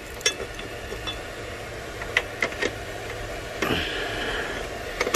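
Hands fitting a bracket among the wiring in a car engine bay: a few light clicks and knocks of plastic and metal parts, and a rustling scrape about three and a half seconds in, over a steady low hum.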